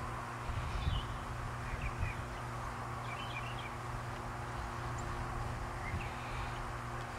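Outdoor ambience: brief high bird chirps every second or two over a steady low hum.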